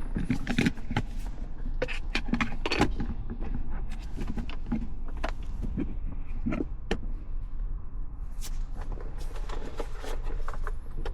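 Irregular clicks and knocks of plastic dash parts and electrical connectors being handled and pushed into place as an instrument cluster is fitted into a car dashboard, over a steady low hum.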